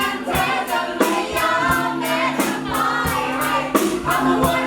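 Live band playing a Thai pop song with a steady drum beat, several voices singing the melody together.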